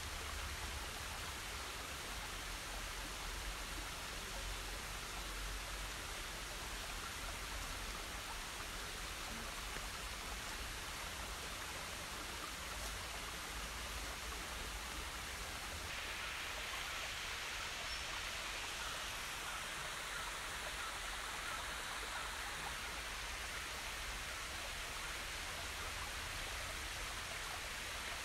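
Steady rushing outdoor ambient noise with no distinct events, like running water; it turns slightly brighter and hissier about sixteen seconds in.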